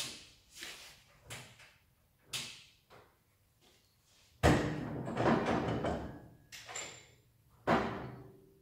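Metal clunks and rattles from a Felder Format sliding-table panel saw's crosscut fence and sliding carriage being handled and adjusted. There are several sharp knocks, a louder clattering slide about four and a half seconds in lasting nearly two seconds, and a last hard clunk near the end. The saw itself is not running.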